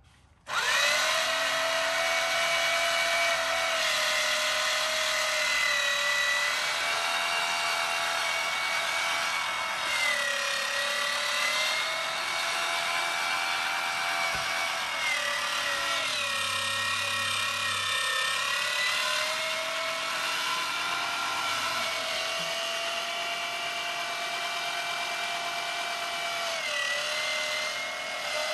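Electric meat grinder switched on about half a second in and running steadily with a high motor whine while it minces pieces of fruit. Its pitch dips briefly a few times as fruit is pushed through.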